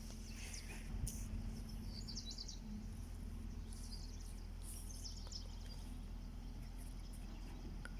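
Birds chirping in short high bursts, twice, over a steady low hum.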